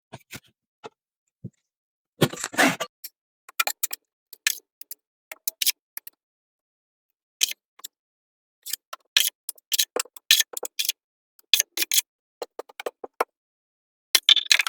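Scattered clicks and short scraping sounds of hand work on a drywall patch, coming in irregular clusters with brief silent gaps between them.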